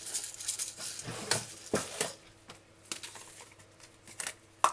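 Light clicks and clinks of metal measuring spoons and a spice jar being handled and opened, busiest in the first two seconds, then sparse, with one sharp click near the end.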